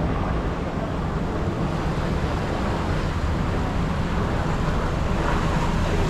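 Steady rushing ambience of water running down an open tube-slide flume, with wind on the microphone.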